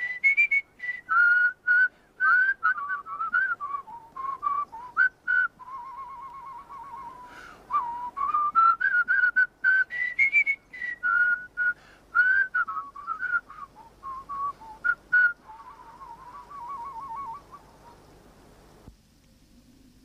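A melody whistled by a person, in short notes and phrases with a couple of warbling held notes, stopping near the end.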